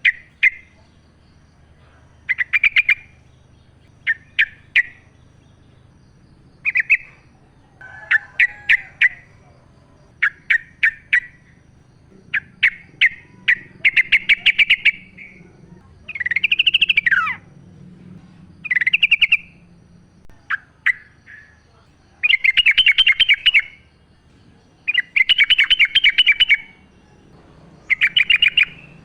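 Wild yellow-vented bulbul (trucukan) singing: short bubbly phrases of quick notes, repeated every second or two, with longer phrases near the middle and end.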